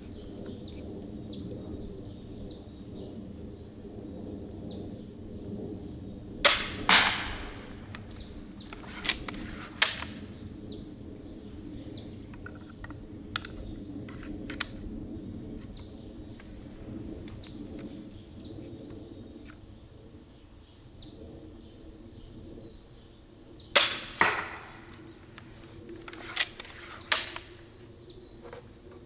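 Two shots from an EK Archery Cobra RX Adder repeating crossbow loaded with steel bolts, one about a quarter of the way in and one near the end. Each is a sharp snap of the string followed about half a second later by the bolt striking the target. A few seconds after each shot come smaller clacks as the crossbow is worked for the next bolt, and songbirds chirp throughout.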